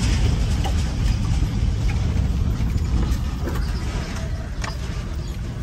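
Car rolling slowly over a cobblestone street, heard from inside the cabin: a steady low rumble of engine and tyres, with a few light knocks and rattles from the bumpy stones. The rumble eases slightly near the end.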